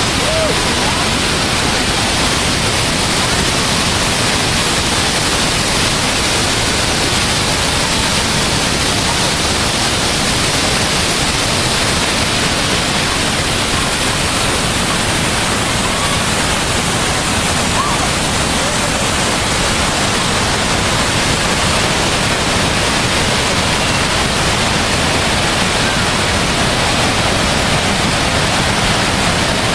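Water pouring over the Agua Azul waterfall cascades: a loud, steady rush of falling water that does not change.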